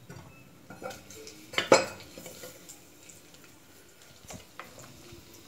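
Steel ladle clinking and scraping against an aluminium pressure cooker as chopped onion pieces are dropped into the tempering and stirred. There are scattered sharp clinks, the loudest two coming close together a little under two seconds in.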